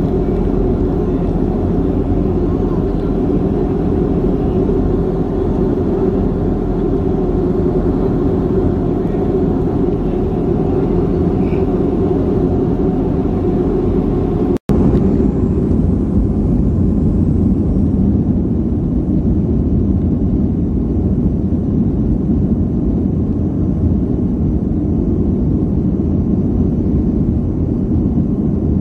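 Steady cabin noise of a Boeing 737-300 taxiing, its CFM56 jet engines at low thrust, a low rumble with a steady hum. The sound cuts out for an instant about halfway through.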